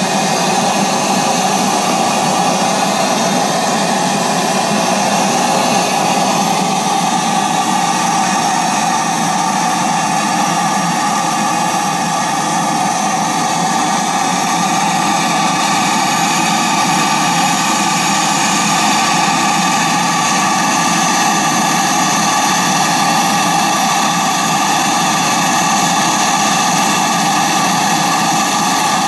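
Model paddle steamer's small steam plant running steadily with a continuous loud hiss that does not change.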